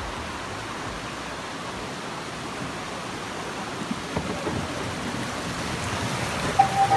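Steady rush of a shallow river running over rocks in rapids, growing a little louder in the second half, with a few low knocks about four seconds in. Music with a held tone comes in near the end.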